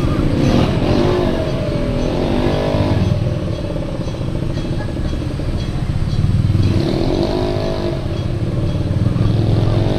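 Street traffic: passing road vehicles' engines rise and fall in pitch, once in the first few seconds and again about seven seconds in, over a steady low rumble.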